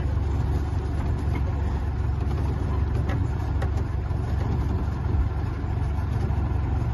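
Open-air park tour train rolling slowly: its engine running with a steady low rumble.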